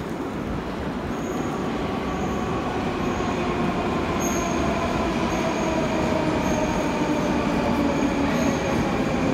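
Moscow Metro train running alongside the platform, a steady rumble with the whine of its motors slowly falling in pitch as it grows louder, as a train coming in and braking does.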